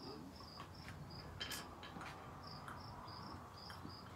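A cricket chirping steadily at one high pitch, about three short chirps a second, with a few faint taps, the sharpest about one and a half seconds in.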